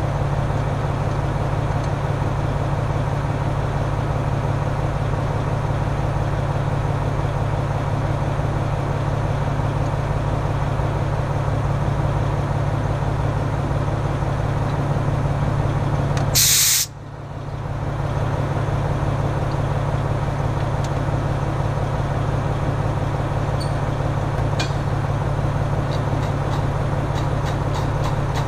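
Engine idling steadily with a low hum. A little past halfway comes one short, loud hiss of escaping gas, and a few light metallic clicks follow near the end as gas-bottle fittings are handled.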